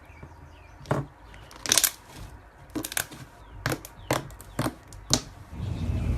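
Slime being squeezed and poked, giving a series of sharp pops and crackles, about eight in all. A low rumble builds near the end.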